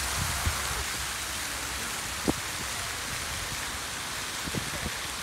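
Steady hiss of water from park fountain jets splashing into their basin. A few sharp clicks cut through it, the loudest a little over two seconds in.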